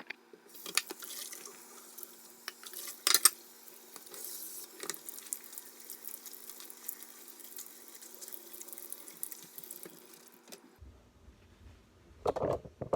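Kitchen tap running into the sink as salted cucumber slices are rinsed, with a sharp knock about three seconds in. The water shuts off near the end.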